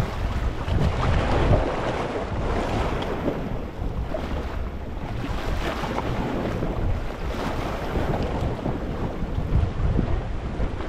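Small waves washing over a rocky shore: a continuous rush of water with a low rumble, swelling and easing every few seconds.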